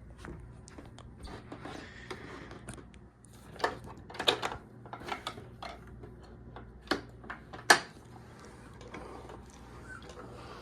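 Scattered sharp clicks and knocks, like something being handled, loudest in a cluster a few seconds in and in two single knocks near the end.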